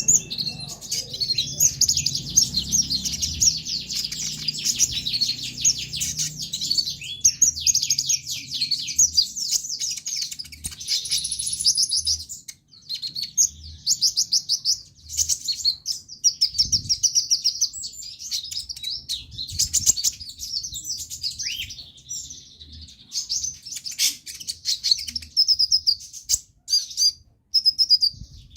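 Konin (kolibri ninja, a small sunbird) singing vigorously: fast chattering runs of high, thin notes, with a couple of brief pauses.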